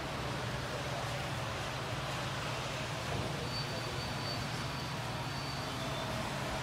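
Steady low rumble and hum of model trains running on a large layout. A faint high thin tone sounds for a couple of seconds midway.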